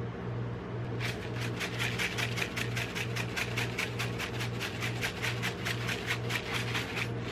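Rainbow sprinkles being shaken out over ice cream on a steel cold plate: a quick, even rattle of about four or five shakes a second, beginning about a second in. Under it runs a steady low hum from the cold plate's refrigeration unit.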